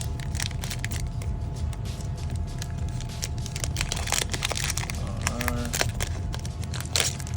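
A foil trading-card booster pack being torn open and handled, a run of small crinkling crackles.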